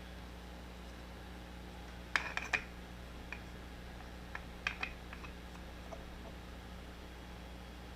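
Small hard clicks and taps of a ring light being fitted onto a microscope: a quick cluster of clicks about two seconds in and another just before five seconds, with a few single ticks between, over a steady low hum.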